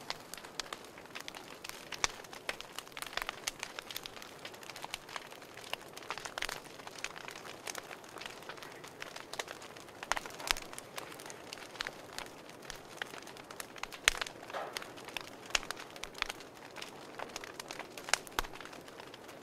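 Crackling fire: irregular sharp pops and crackles over a soft hiss.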